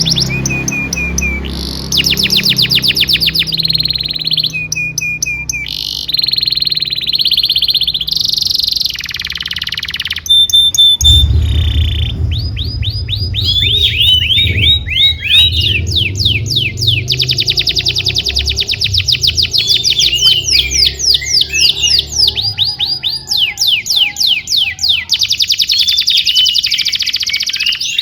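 Domestic canary singing a long song of rapid trills and rolls, switching from one fast repeated phrase to the next every second or two, over a low steady hum in parts.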